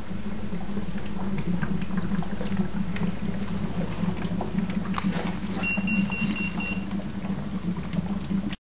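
HHO electrolysis cell running at about 120 volts and 2.6 amps, its gas bubbling and gurgling through a water bubbler over a steady low hum. A short run of electronic beeps comes about six seconds in.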